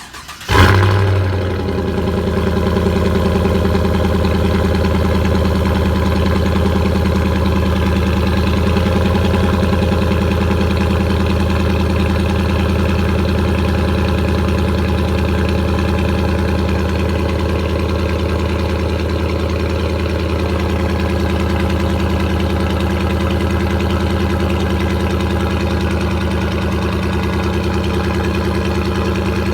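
2015 Chevrolet Silverado with a Corsa Sport cat-back exhaust and third catalytic converter deleted, cold-started: a short crank, then the engine catches with a loud flare about half a second in and settles into a steady idle.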